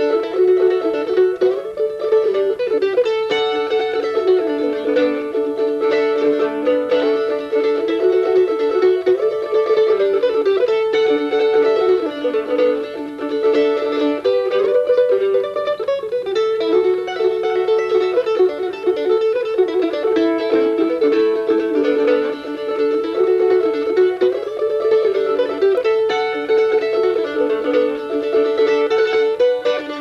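1924 Gibson F5 mandolin played solo, a melody with long held notes and phrases that recur every few seconds.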